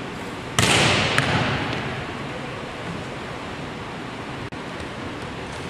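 A volleyball being spiked: one sharp smack of the ball about half a second in, ringing on in the echo of a large gym hall, then steady hall hiss.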